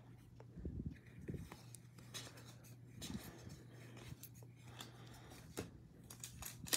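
Faint soft rustles and slides of baseball trading cards being flipped one by one from the front of a hand-held stack to the back, over a low steady hum. Near the end a card pack's wrapper crinkles as it is picked up.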